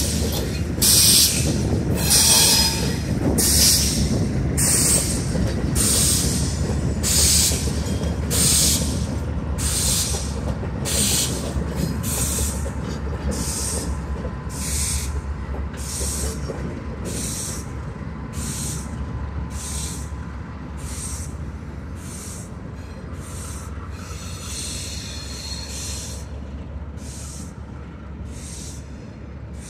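A consist of CN diesel locomotives moving slowly away on yard track. The engines give a steady low rumble, and a high hissing wheel squeal pulses about once a second, spacing out slightly as the train fades into the distance.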